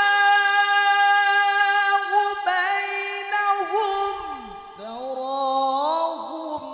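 A man's high-pitched melodic Quran recitation (tilawah), holding one high note for about four seconds, then dropping low and climbing again into the next phrase.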